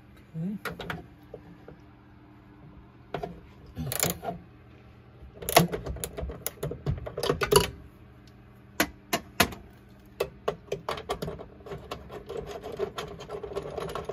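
Ratchet wrench with a 17 mm socket clicking in short runs while undoing terminal nuts, with metal tools clinking. From about ten seconds in, the clicks come quick and steady.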